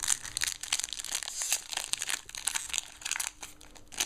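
Foil wrapper of a Yu-Gi-Oh! booster pack crinkling and tearing as it is handled and ripped open by hand, in irregular crackly bursts.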